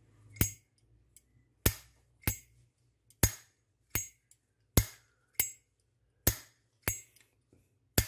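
Brass Zippo Armor lighter's lid flipped open and snapped shut again and again: about nine sharp metallic clicks, a little over half a second to a second apart, each with a brief ring. This is the clear click of the thick-walled Armor case.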